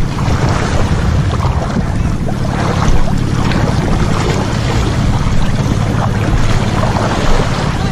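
Boat engine running steadily, a low even hum, under wind noise on the microphone.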